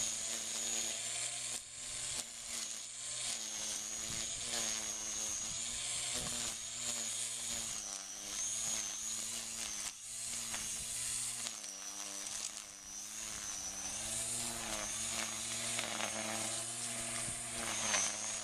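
Black & Decker cordless string trimmer running steadily, its electric motor and spinning line giving a high whine whose pitch wavers as the line cuts grass and weeds.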